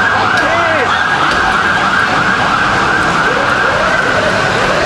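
Emergency vehicle sirens wailing and yelping continuously in street traffic, with rising and falling pitch sweeps over a steady low hum.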